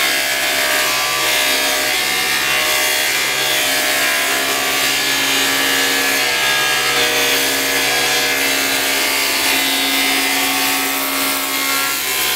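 SawStop table saw running with its blade cutting lengthwise through a long wooden strip fed along the rip fence. The cut runs as one continuous, even sound throughout.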